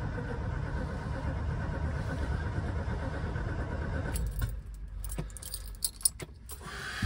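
Triumph Stag's V8 cold-cranking on the starter motor for about four seconds on choke without catching, keys jangling; the cranking stops suddenly, followed by a few clicks.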